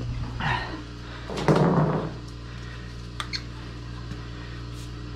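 Sewer inspection camera's push cable being handled at a floor cleanout, scraping and rustling, with one louder scrape about a second and a half in and a couple of light clicks near the middle, over a steady low hum.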